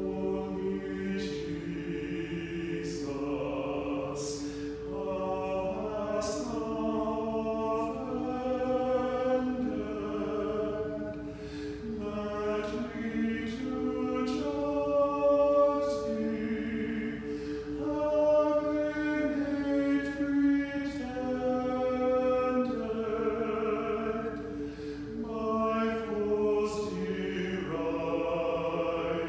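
A small mixed choir of men's and women's voices singing in parts, with long held notes under a moving melody.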